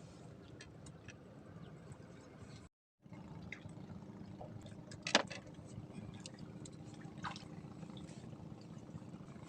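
Faint water sounds, lapping and trickling, with scattered small clicks and one sharp click about five seconds in. The sound drops out completely for a moment just before three seconds in.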